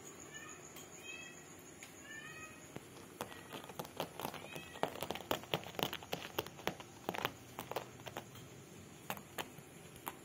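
Kitten mewing: three short, high mews in the first few seconds. Then a run of sharp clicks and scratches, loudest in the middle, as the kitten claws and paws at the rug.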